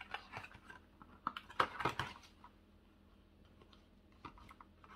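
A run of light clicks and taps from handling a handmade paper box with a magnetic clasp, bunched in the first two seconds or so, then quiet.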